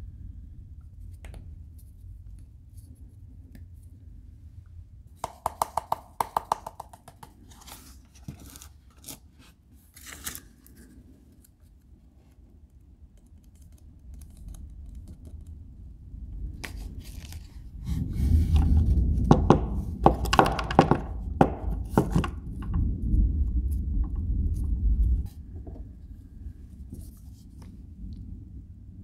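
Hand-work noises on a resin lure body as lead ballast weights are set into their holes and worked flush: a quick run of sharp taps about five seconds in, then a louder stretch of rubbing and scraping with knocks from about eighteen to twenty-five seconds.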